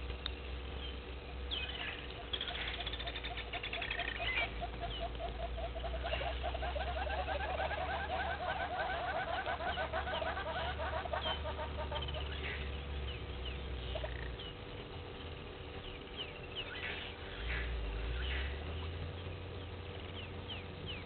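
Wild birds calling. About two seconds in comes a rapid, buzzy high trill, then a long run of rapid low pulsed notes lasting about six seconds, then scattered short high chirps. A steady low hum runs underneath.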